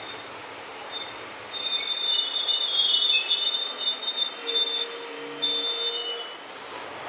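Train wheels squealing against the rails: shrill, wavering high-pitched squeals that begin about a second and a half in and fade out near the end. Underneath is the steady running noise of the train.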